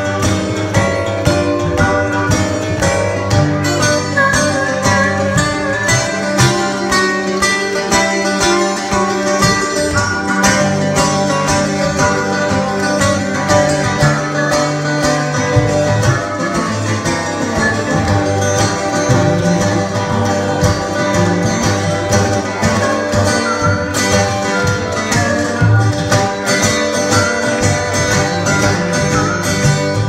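Instrumental break of a country blues tune: two acoustic guitars strumming and picking, with a harmonica playing over them and no singing.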